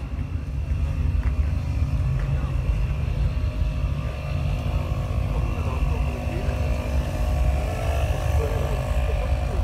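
A steady low engine drone with a few steady tones over it, under faint distant voices.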